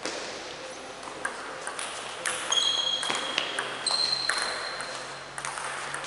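Table tennis rally: the celluloid ball clicks sharply off the rubber bats and the table, about two clicks a second. Mixed in are a few brief high-pitched pings or squeals, each lasting under a second.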